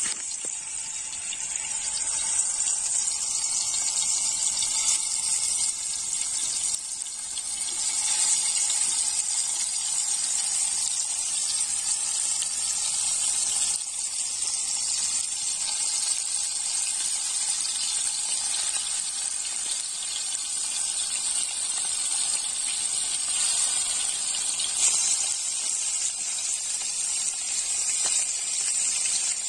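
Turmeric-coated fish pieces frying in hot oil in an iron wok, with a steady sizzle.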